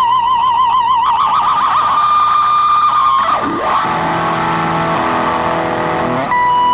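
Distorted electric guitar playing a solo. It holds a high note with wide vibrato, moves to a second held note, then slides sharply down in pitch to a lower sustained note, and breaks into fast runs near the end.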